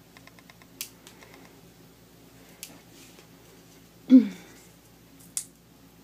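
Small clicks and taps of paper embellishments being pressed and stuck onto a kraft card on a cutting mat, with one much louder knock about four seconds in and a last sharp click near the end.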